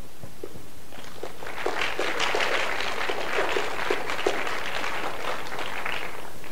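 Audience applauding, a dense patter of many hands clapping that builds up about a second in and dies away near the end.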